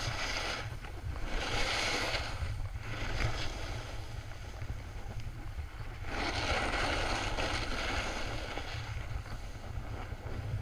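Snowboard sliding and carving over packed snow, a hiss that swells twice with the turns, over wind buffeting the microphone.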